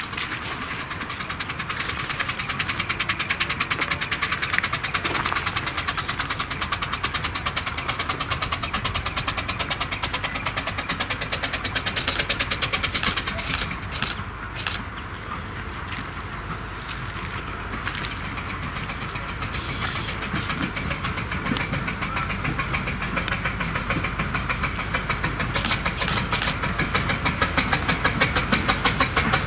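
A 15-inch-gauge steam locomotive working a train, its rapid exhaust beats running steadily and growing louder near the end as it approaches, with a few metallic clanks about halfway through.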